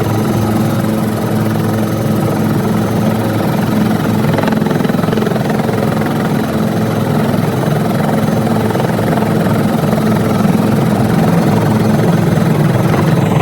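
An aircraft running loud and steady, with a low, even drone.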